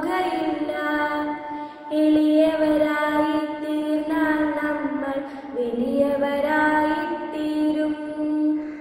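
A child singing a slow Malayalam song in long held notes, with a short break between lines about two seconds in.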